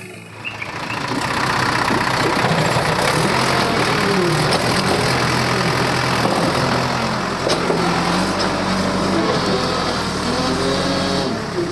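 JCB 3DX backhoe loader's diesel engine working under load, its revs rising and falling as it loads mud. It builds up about a second in and then runs loud and steady.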